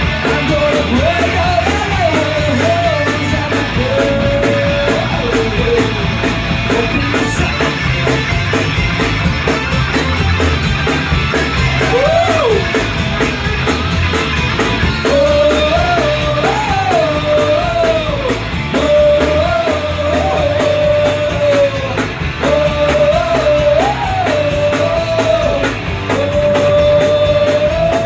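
Punk rock band playing live: electric guitars, bass and drums at full volume, with a melody line of held notes that bend up and down over the top.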